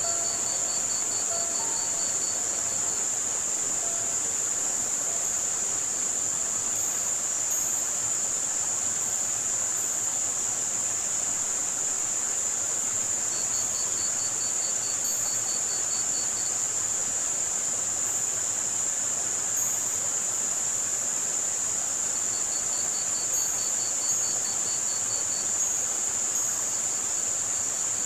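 Layered tinnitus-masking soundscape: a steady high-pitched band of white noise with short high chirps over an even hiss of running lake water. Crickets trill three times, each trill lasting about three seconds. A few soft music notes sound in the first seconds.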